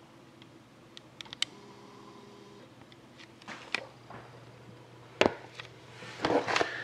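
A few scattered light clicks and taps from handling, over a faint steady hum. A small cluster comes about a second in, more follow near the middle, and a sharper click comes just after five seconds.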